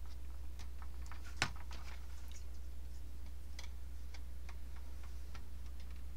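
Small, irregular plastic clicks and taps as resin laser cannons are worked onto the wing-tip tabs of a vintage Kenner X-wing toy, with one sharper click about one and a half seconds in. A steady low hum runs underneath.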